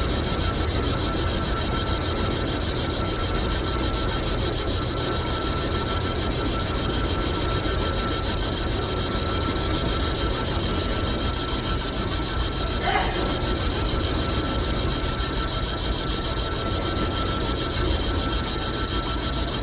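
Metal lathe running and cutting, a steady rasping noise with a constant high whine. There is a short sharp scrape about 13 seconds in.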